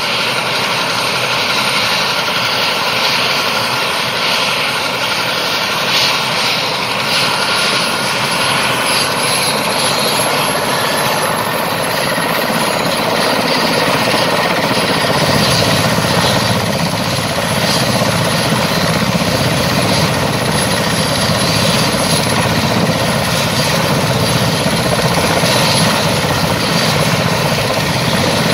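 Mil Mi-17 helicopter running on the ground, its twin turboshaft engines whining with the main and tail rotors turning. A high whistle climbs in pitch about a third of the way in. About halfway through, the low rotor and engine noise grows louder as the rotor comes up to speed.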